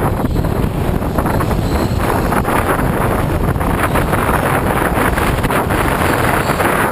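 Loud, steady rushing noise of wind buffeting a camera microphone mounted on a moving Sydney R-class tram's trolley pole, mixed with running vibration carried up the pole from the tram. A brighter hiss builds in the second half.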